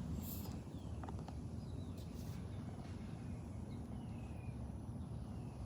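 Outdoor ambience: a steady low rumble with faint bird chirps, several short falling notes spread through.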